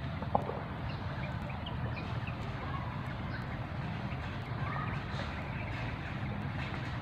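Steady low outdoor rumble with a few faint, short high chirps scattered through it.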